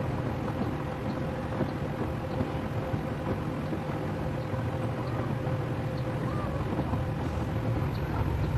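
Whirlpool WFRB752BHW inverter front-load washing machine running its delicate wash cycle: the drum tumbles laundry through sudsy water, with a steady low motor hum and a thin steady whine.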